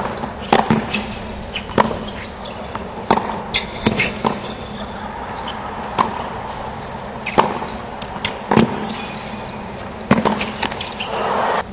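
Tennis rally on a hard court: the ball is struck by the rackets with sharp pops about every second and a half, with fainter bounces in between. Crowd noise swells near the end.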